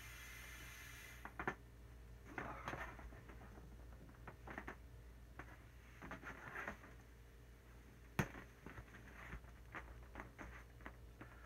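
Faint steady blowing into the valve of a blue vinyl inflatable alien stops about a second in. Then scattered faint squeaks, rubs and taps of the taut inflated vinyl being handled, with one sharp tick a little past the middle.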